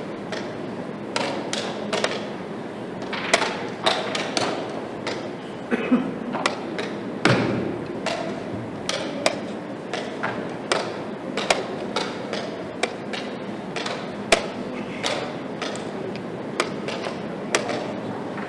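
Wooden chess pieces being set down hard and the chess clock's buttons slapped in quick alternation: sharp irregular clacks, about one or two a second. Both players are in a blitz time scramble with only seconds left on the clock.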